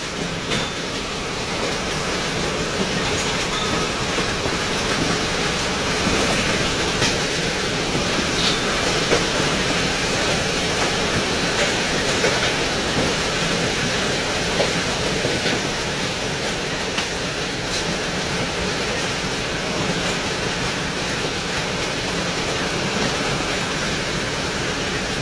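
Heavy rain and hail falling hard in a violent storm: a dense, steady rush with scattered sharp hits.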